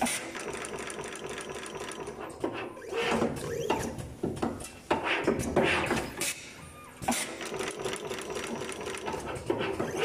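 Automatic multi-core sheathed cable stripping and crimping machine cycling: repeated sharp clacks of its mechanism mixed with short hissing bursts, the pattern coming round about every six seconds.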